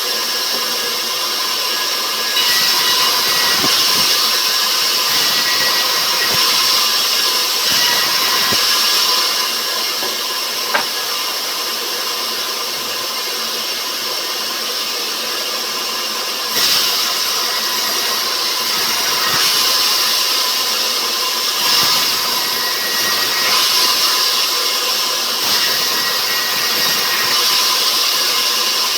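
Sawmill saw running and cutting rubberwood, a loud steady machine noise with a constant whine. It grows louder about 2.5 s in, eases off from about 9 s, and picks up sharply again about 16.5 s in.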